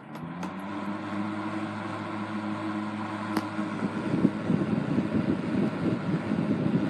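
Restored 1960s Eskimo model 2012 12-inch box fan starting up on high. The motor hum grows louder as the blades spin up, and from about four seconds in a steady, rough rush of air takes over.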